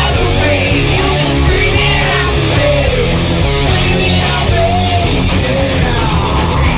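Rock music with distorted electric guitar, a steady bass and singing.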